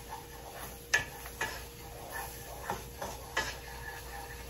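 Wooden spoon stirring a butter-and-flour roux in a nonstick pan, knocking against the pan a few times, the sharpest knock about a second in.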